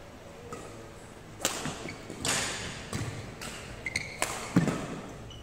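Badminton rally: sharp strikes of the racket on the shuttlecock, with thuds of footwork on a wooden court floor and a brief shoe squeak.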